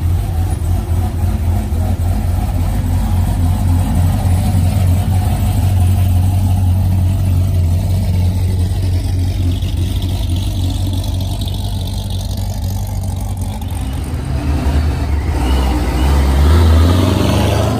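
Deep, loud exhaust rumble of modified American sports cars, a Chevrolet Corvette and a Camaro on drag wheels, rolling slowly out of a lot. The rumble swells near the end as one car passes close and accelerates.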